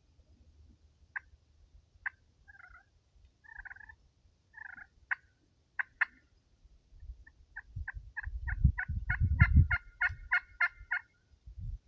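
Turkey calling: a few scattered sharp clucks and short yelps, then a steady run of about a dozen and a half yelps over roughly four seconds, starting about seven seconds in. A low rumble sits under that run.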